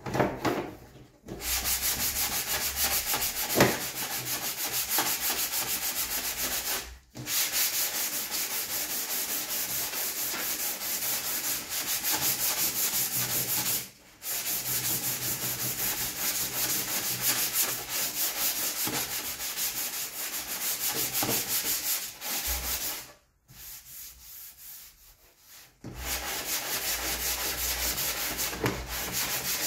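Hand sanding a plastic motorcycle fairing panel with sandpaper on a hand block: a steady, rapid back-and-forth scratching of abrasive on plastic. It stops briefly twice and drops to a quieter stretch about three-quarters through before picking up again.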